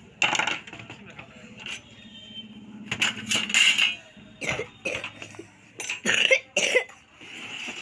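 Indistinct voices talking, mixed with irregular clinks and knocks.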